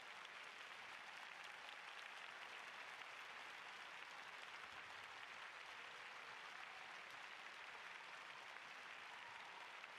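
Arena crowd applauding steadily, faint.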